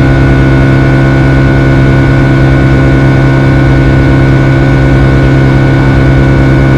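Boeing 757-200 passenger cabin in flight: a loud, steady drone of engines and airflow with a strong low hum and a thin, steady high whine.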